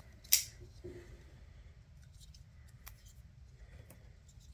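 Small parts and tools being handled on a workbench: one sharp click about a third of a second in, then a few light clicks and taps as a roll of electrical tape is picked up.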